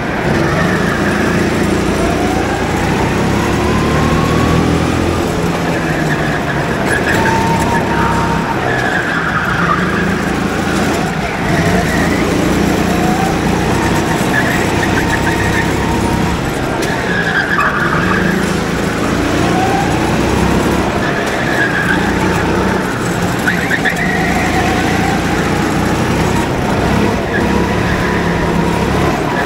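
Go-kart engines running and revving as the karts are driven round the track, with tyres squealing through the corners every few seconds.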